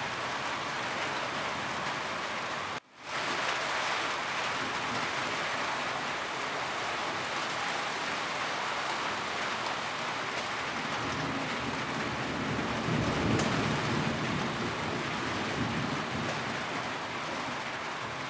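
Steady rain falling on a roof, an even hiss of drops. The sound cuts out for a moment about three seconds in and fades back up, and a low rumble swells in about two thirds of the way through.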